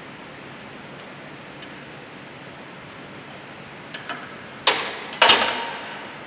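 Two loud metallic clanks about half a second apart, each with a short ringing decay, as a steel ring spanner is put down on a lathe's sheet-metal chip tray, preceded by a few light clicks of the spanner on the bolt.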